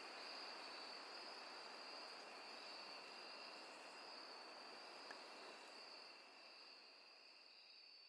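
Night-forest ambience of crickets chirring steadily over a faint hiss, slowly fading out near the end.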